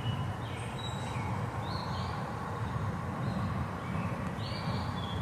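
Small birds giving short, high chirps several times over a steady low rumble.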